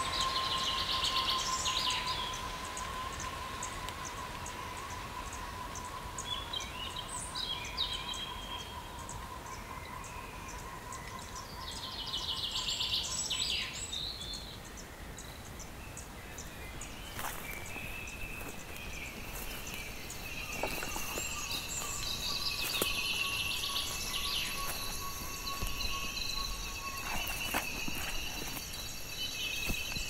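Tropical rainforest ambience: insects droning in steady, unbroken tones over a constant background hiss, with birds calling in short trilled bursts every few seconds. About halfway through, a new chorus of higher insect buzzes joins in, with a few sharp clicks.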